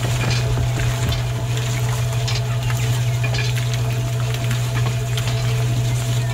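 Miniature motor-driven sand sieve shaking steadily: a constant low hum from the drive, with light scattered ticks of sand and small stones rattling on the wire mesh.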